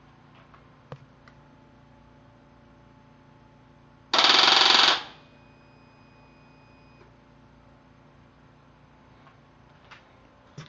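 Harley-Davidson Street Bob's starter circuit chattering in a rapid, machine-gun-like clatter for under a second without the engine catching. A faint steady high tone lingers after it, with a few small clicks near the end.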